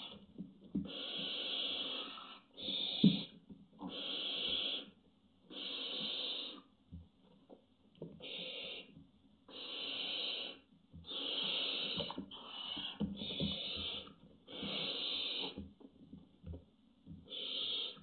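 Barn owl hissing in a threat display: about eleven harsh, breathy hisses, each roughly a second long, with short gaps between them. Soft knocks and scrapes of movement on the nest-box floor come between the hisses, with one sharp knock about three seconds in.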